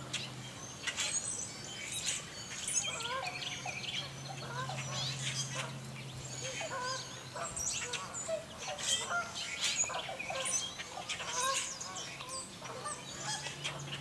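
A mixed flock of birds calling: blackbirds chattering and chucking at the feeders, with waterfowl honking in the background. The calls come in short bursts of many overlapping notes.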